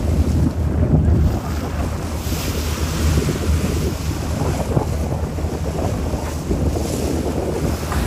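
Wind buffeting the microphone: a steady, gusty rumble of noise.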